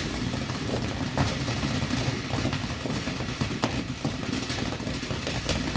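Small ground firework (fountain) burning with a steady low rushing, with a few sharp cracks over it.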